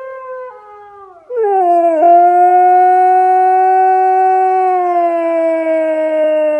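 Siberian husky howling: one long, steady howl begins about a second in, sliding down in pitch at first and then holding. It answers a fainter howl played from a phone, which is heard before it.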